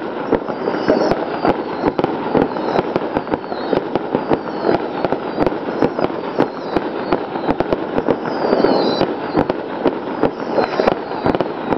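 Ruggieri professional aerial fireworks display: a continuous stream of bangs and crackling from shell bursts, with a few falling whistles.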